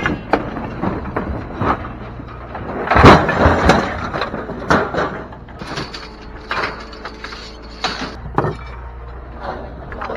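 Scrap metal being thrown off a load onto a pile, clanking and crashing in irregular knocks, the loudest crash about three seconds in, over a steady low hum.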